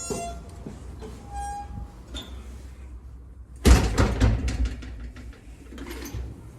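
Iron door giving a short faint squeak, then slamming shut loudly about three and a half seconds in, with a rattle lasting about a second after the bang.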